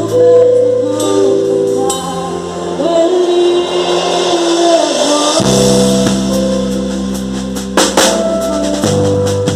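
Live gospel worship song: a voice holding long notes over sustained band chords, with drum and cymbal hits coming in near the end.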